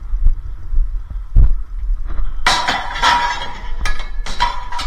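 Scrap metal tubes thrown into the back of a caged tipper truck, clattering and clanging with ringing metallic strikes from about halfway through, then two or three more clanks near the end. Dull low thumps of walking and handling run underneath.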